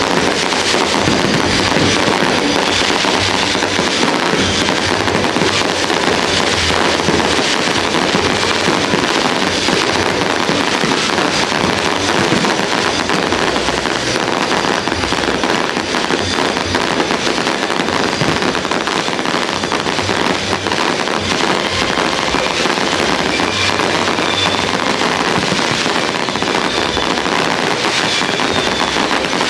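Fireworks display going off in a dense, unbroken barrage of bangs and crackling, with no pauses.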